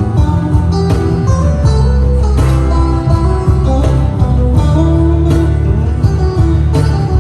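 Live band playing an instrumental passage of a devotional song: guitar over a strong, sustained bass line, with a steady beat of percussive hits.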